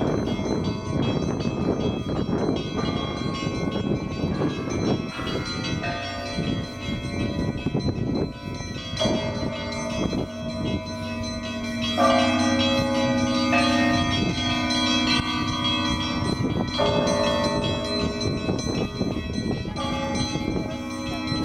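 Russian Orthodox monastery bells rung before the Divine Liturgy. Small bells are struck in quick succession, and from about nine seconds in larger bells join, struck every few seconds with their tones ringing on.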